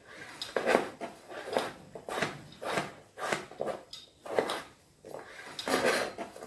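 Kitchen knife chopping peeled raw potato on a plastic cutting board: a steady run of sharp cuts, about two a second, each blade knocking on the board.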